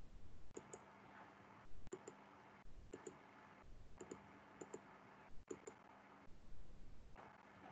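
Faint computer mouse clicks, mostly in quick pairs like double-clicks, coming about once a second, over a low hiss that cuts in and out.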